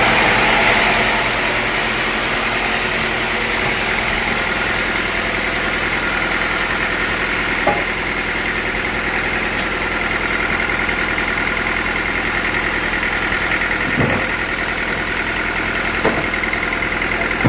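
Sawmill machinery running steadily, a machine hum with a few light knocks; the level eases slightly about a second in.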